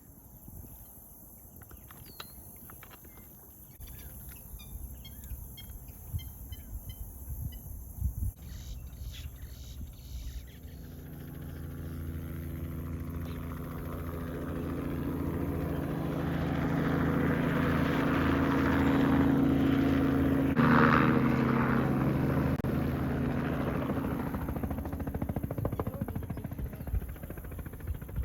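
A boat engine passing by: a steady engine note rises out of near-quiet about ten seconds in, is loudest about two-thirds of the way through, then fades away. Small birds chirp before the engine comes in.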